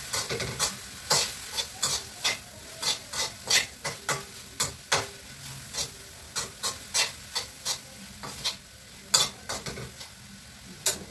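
Metal spatula stirring food in a frying pan: irregular scrapes and taps against the pan, about two a second, over a light sizzle of frying.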